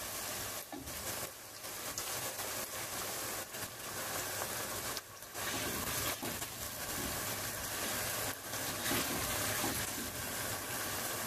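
Sliced onions frying in hot oil in a pot over a medium flame: a steady sizzle that dips briefly a few times as a slotted spatula stirs them. The onions are still raw and pale, early in deep-frying them to crisp and brown.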